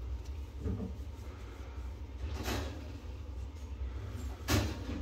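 Rustling and bumping handling noise as a blue-gloved hand strokes kittens on a towel, in short scuffs with the loudest about four and a half seconds in, over a steady low hum.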